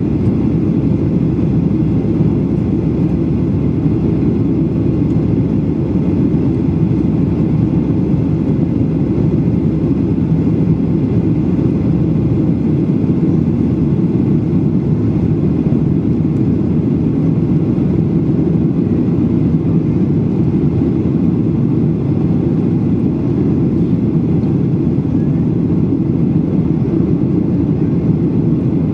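Steady cabin noise of a jet airliner in flight: an even low rush of engines and airflow with no changes. A faint steady tone drops out about twelve seconds in.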